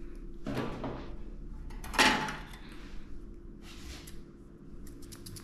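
Thumps and rustles of a small dog moving on a grooming table, the loudest a sudden one about two seconds in. Near the end come a few quick snips of grooming scissors.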